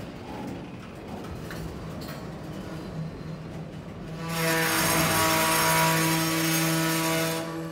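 Freight train of empty auto-rack cars rolling slowly past, its wheels rumbling on the rails. About four seconds in, a loud grinding squeal with a steady pitch starts, runs for about three seconds, then cuts off.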